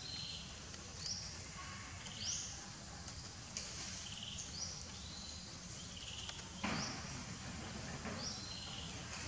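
A bird repeating a short rising call about once a second over steady background noise, with a brief sudden thump about two-thirds of the way through.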